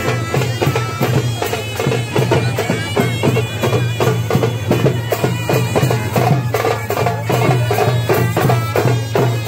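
Traditional folk music: a high wind-instrument melody over frequent drum strokes and a steady low drone.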